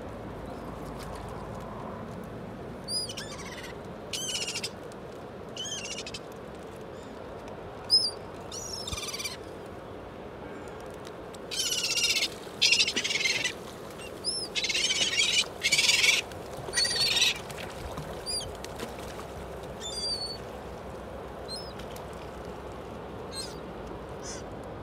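A flock of gulls calling: scattered short high calls, then a run of loud, harsh squealing calls about halfway through, then a few more short calls, over a steady background hiss.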